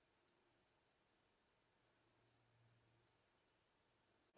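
Fortex Swiss 15-jewel lever-escapement pocket watch movement ticking faintly and evenly, about five ticks a second: the serviced movement running.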